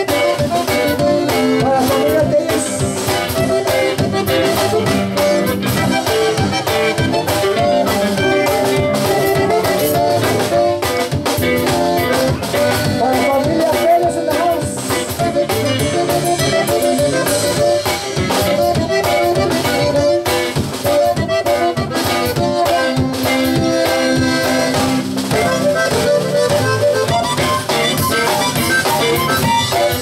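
Live Tejano conjunto band playing: button accordion with acoustic guitar, electric bass and drum kit, a steady dance beat throughout.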